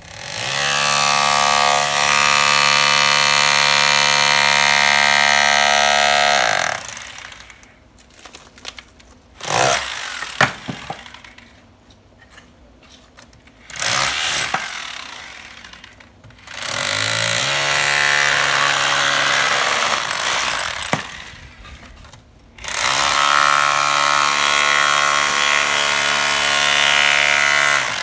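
Corded electric rotary hammer chiseling old stone veneer off a wall. It runs steadily for several seconds at a time, three times, with short sharp knocks between the runs.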